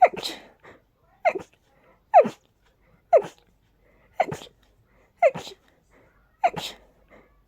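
A person sneezing in rapid succession, about seven sneezes roughly a second apart. Each is a sharp 'choo' with a quick falling pitch, part of an allergic sneezing fit brought on by pollen and dust.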